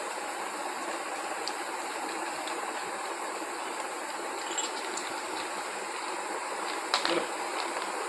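Labrador retriever eating dry kibble from a hand: a few faint crunches and clicks, and a short louder crunch about seven seconds in, over a steady background hiss.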